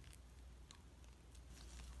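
Faint, sticky clicks and squishes of shaving-foam slime being pressed and stretched by hand, a handful of soft pops spread across the two seconds over a low steady hum.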